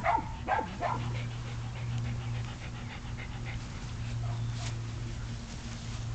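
Dogs: a few short, high yips in the first second, then a dog panting close by, over a steady low hum.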